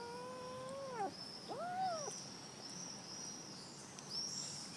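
Domestic cat meowing for food: one long meow that falls away about a second in, then a shorter rising-and-falling meow.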